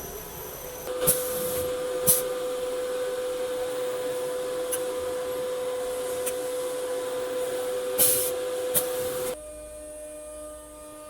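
CNC router's air-cooled spindle running with a steady high whine and hiss, with a few short sharp hisses along the way, cutting off abruptly about nine seconds in.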